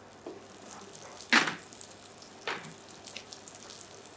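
Chicken breast frying in foaming butter in a frying pan over medium-high heat: a steady soft sizzle, with two louder sharp crackles about a second apart.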